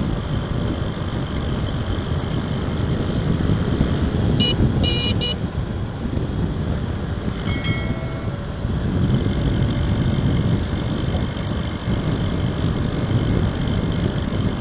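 Wind buffeting the external microphone of an SJCam SJ6 Legend action camera inside a closed-visor motorcycle helmet at about 70 kph: a heavy, steady low rumble. Three short high beeps sound about four to five seconds in, and a brief pitched tone near eight seconds.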